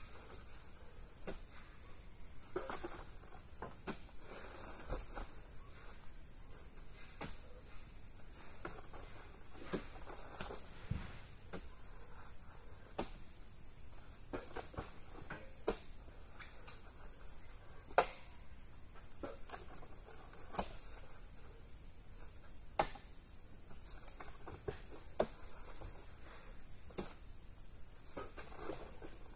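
Steady high-pitched insect drone, with irregular sharp knocks and thuds scattered through it, the loudest about eighteen seconds in.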